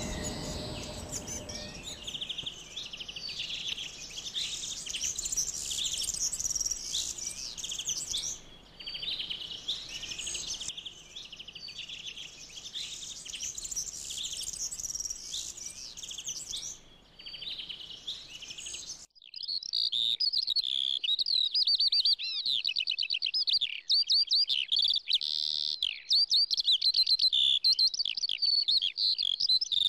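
Songbirds singing and chirping, several calls overlapping. A little past halfway the sound cuts abruptly to a louder, closer bird singing rapid repeated notes.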